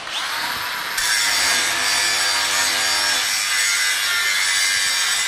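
Milwaukee M18 Fuel cordless brushless angle grinder spinning up with a quickly rising whine, then grinding a steel pipe from about a second in: a loud, steady grinding noise of the abrasive disc on the steel.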